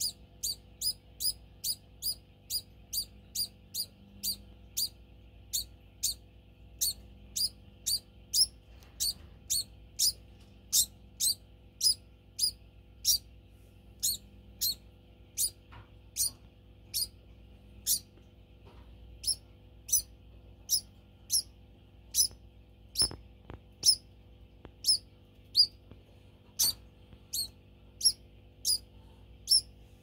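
Pet degus squealing to beg for food: short, high-pitched peeps repeated over and over, about two a second, thinning a little later on.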